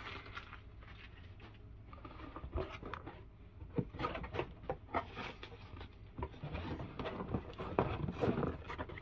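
A cardboard shipping box being pulled open and its packing handled: irregular scraping and rustling of cardboard flaps and crinkling of plastic air-cushion packing. It is soft for the first couple of seconds, then becomes a busy run of short rustles and clicks.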